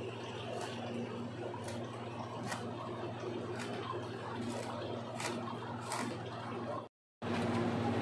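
Woven plastic packaging sack being pulled and torn open by hand, with sharp crackling rustles about once a second over a steady low hum.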